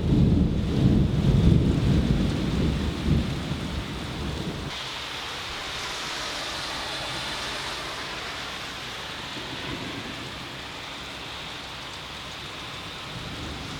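Thunder rumbling loudly over rain for the first few seconds, stopping abruptly about a third of the way in; after that, steady rain.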